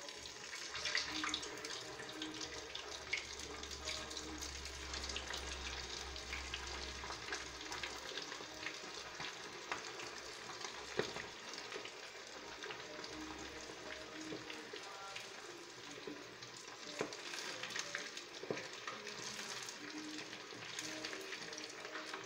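Breaded chicken pieces deep-frying in hot oil in a small pot for their second fry, to crisp them: a steady sizzle dotted with many sharp crackles and pops.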